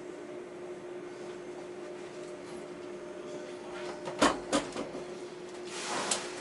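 Cabin of a Düsseldorf SkyTrain suspended monorail car as it comes to a stop at the station. A steady hum runs throughout, then two sharp clunks come about four seconds in and a short rising hiss with a click comes near the end.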